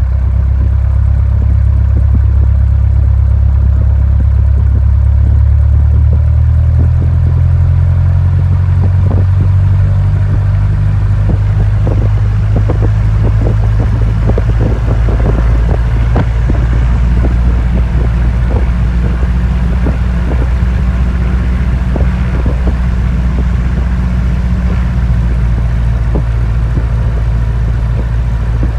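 Small plane's engine droning inside the cabin, its low tones shifting in pitch about seven seconds in. A rattling clatter runs over the drone from about eight to twenty seconds in.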